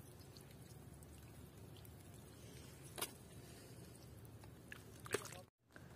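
Near silence: faint outdoor background with a brief click about three seconds in and a couple more near the end.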